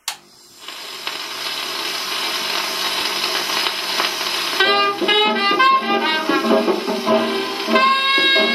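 Stylus set down on a 1936 Decca 78 rpm shellac record with a sharp click. The lead-in groove then hisses with surface noise for about four seconds. A small jazz band's recording starts about halfway through, with horns over the rhythm section and the record's hiss running under it.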